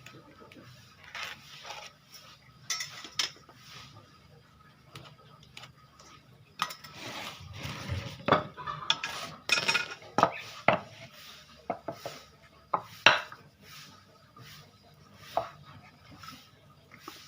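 Irregular clatter of knocks and sharp clinks from hand tools and wooden pieces being handled, busiest in the middle, with a stretch of scraping about seven to ten seconds in and a loud knock about thirteen seconds in.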